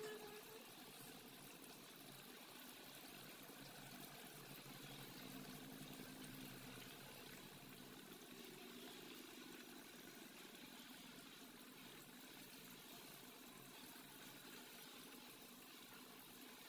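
Faint, steady bubbling of a fish curry with small potatoes simmering in a pot.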